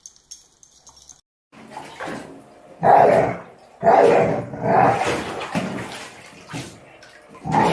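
Water splashing in a shallow bathtub as a dog paws at it and dips its nose in, in several loud bursts about a second apart, the first about three seconds in, then smaller splashes.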